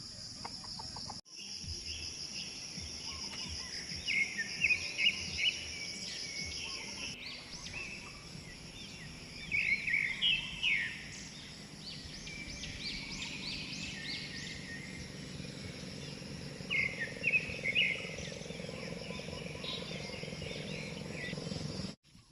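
Outdoor ambience of birds chirping in several short bursts over a faint steady background, with a steady high buzz in the first few seconds.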